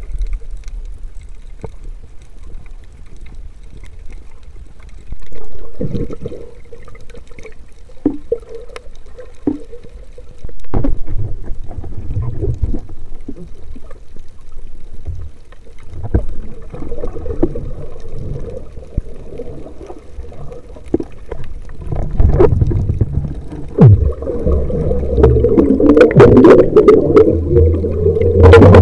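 Muffled underwater sound through an action camera's waterproof housing: a low rumble with scattered knocks and clicks. It turns into louder bubbling and churning over the last several seconds, with bubbles streaming from a freediver's mask and breath right beside the camera.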